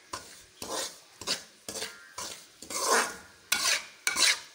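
Semolina being stirred as it dry-roasts in oil in a metal pan for sooji halwa. The utensil scrapes across the pan bottom in short strokes, about two a second.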